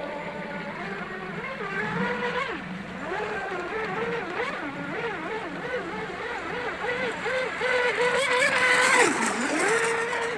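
RC hydroplane boat's 3200KV brushless electric motor whining at speed across the water, its pitch rising and falling over and over with the throttle. It grows loudest, with hissing spray, as the boat runs past close about eight to nine seconds in, then the pitch drops sharply for a moment and climbs back.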